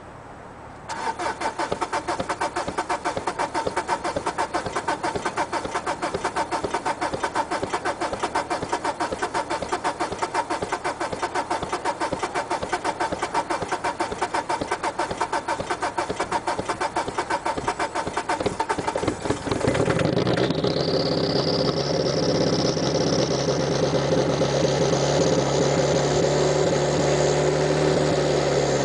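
Peugeot diesel car engine being cold-started: the starter cranks it for about eighteen seconds in a fast, even beat before it finally catches. It then settles into a fast idle, with a high whine rising in pitch. The long crank is typical of a hard diesel cold start.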